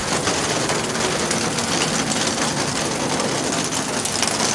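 Steady rain falling on wet stone paving, a dense continuous patter.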